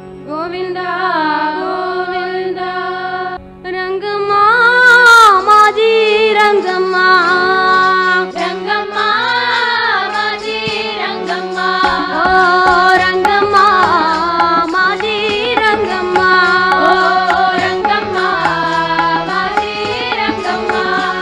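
Devotional bhajan sung by a group of girls to a steady harmonium accompaniment, with a short break about three seconds in and tabla strokes coming in around the middle.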